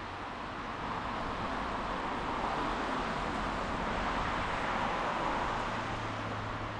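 A car passing on a wet street, its tyre hiss swelling and then fading away, over the steady patter of rain.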